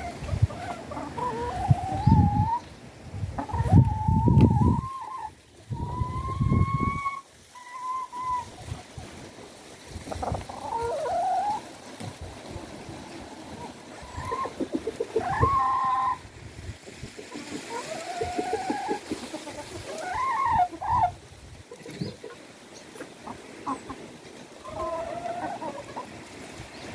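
Domestic chickens calling: hens giving repeated clucks and drawn-out squawking calls, one held for over a second about six seconds in. Bursts of low rumble come and go in the first seven seconds.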